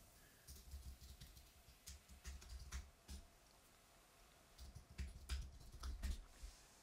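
Faint typing on a computer keyboard: scattered keystroke clicks in a few short runs.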